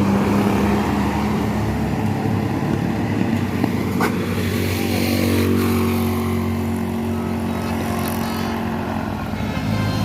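Large tour bus engine running as the bus passes, with a steady low hum whose note slides slightly lower in the second half. There is one sharp click about four seconds in.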